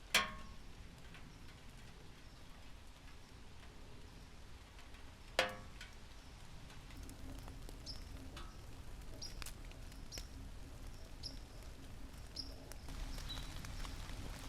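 Rain pattering steadily, with two sharp knocks about five seconds apart. Faint short high chirps repeat through the second half.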